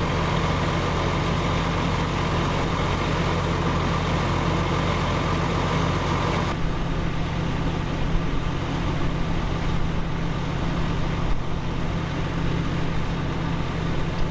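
Heavy engine of a fire engine running steadily, with a steady hiss over it. The mix changes abruptly about six and a half seconds in.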